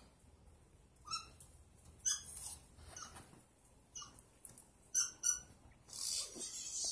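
Dog giving about five short, high-pitched yips or whimpers, spaced irregularly, with a burst of rustling near the end.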